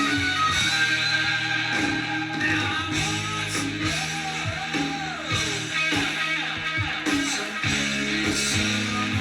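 Rock music led by guitar, played from a vinyl record, with a gliding pitch line near the middle.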